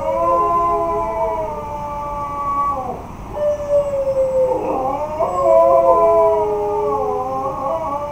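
Two huskies howling together in long, wavering howls that overlap at different pitches, with a brief break about three seconds in before they start again.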